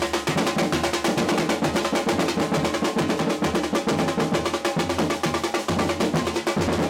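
Brazilian percussion drum line of large strapped surdo bass drums and higher drums beaten with sticks, playing a loud, dense, unbroken rhythm.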